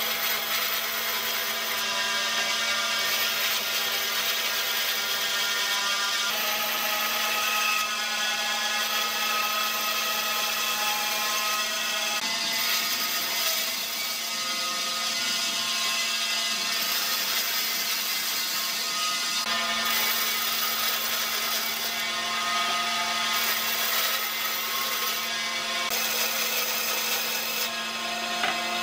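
Vertical band saw running and ripping wooden boards lengthwise: a steady motor hum under a high blade whine and the rasp of the cut. The whine changes pitch abruptly several times.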